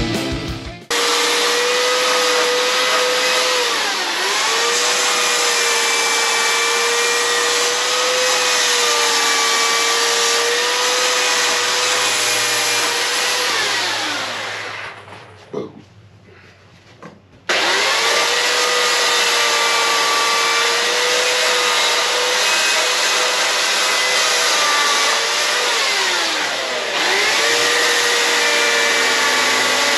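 Corded electric chainsaw running at a steady high whine while cutting wood, its pitch sagging each time the chain bites in under load. About halfway it is switched off and coasts down to a stop, then starts again sharply a couple of seconds later.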